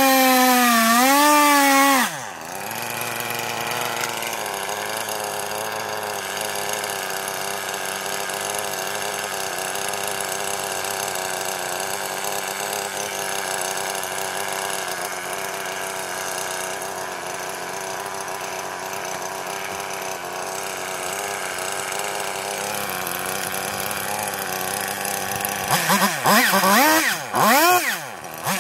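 Two-stroke chainsaw at high revs drops to idle about two seconds in and idles steadily. Near the end it is revved up again in several quick rising-and-falling bursts.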